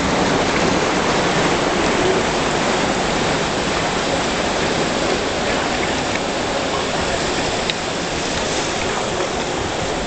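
Whitewater rushing and churning around a round raft on a river rapids ride: a steady, loud hiss of water that eases slightly toward the end.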